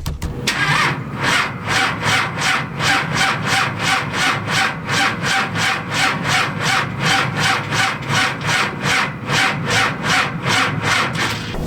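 Truck engine cranking over slowly on its starter without firing, an even rhythm of about two and a half strokes a second. The slow cranking is from weak batteries, which the owner blames for the no-start.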